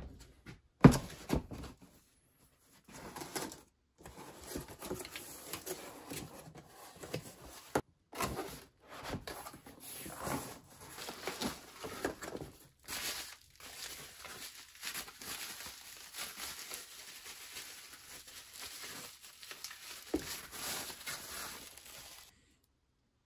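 A shotgun's cardboard shipping box being opened and unpacked, with plastic wrapping crinkling and cardboard rustling as the parts are lifted out. A sharp knock about a second in is the loudest sound.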